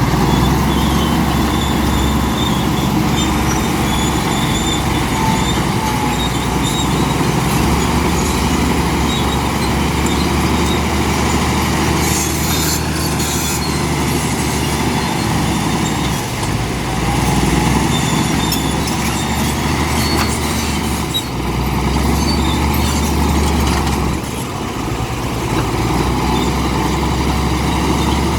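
Komatsu D65P bulldozer's diesel engine running steadily under load while it pushes and levels rock, with a few brief dips in loudness.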